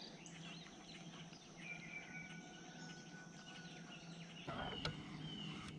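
Faint outdoor morning ambience with birds chirping, over a low steady hum. About four and a half seconds in the background changes abruptly to a louder, fuller noise.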